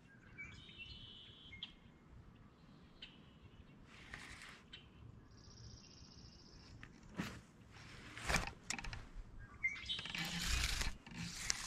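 Small birds trilling in short high-pitched spells, over faint background noise. Scattered short bursts of rustling or handling noise break in, the loudest about eight seconds in and another near the end.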